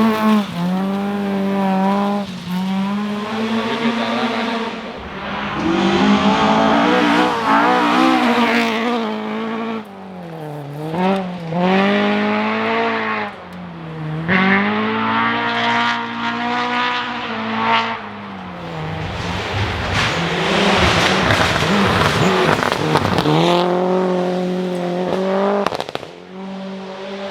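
Historic rally car engine revved hard at full throttle, its pitch climbing through each gear and dropping sharply at lifts and shifts, with tyre noise from the stage surface.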